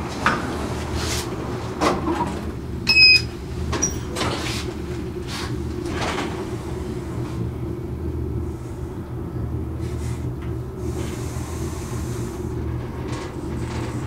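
Schindler elevator car in motion, a steady low hum. In the first six seconds it is broken by several clicks and knocks and a short high beep about three seconds in.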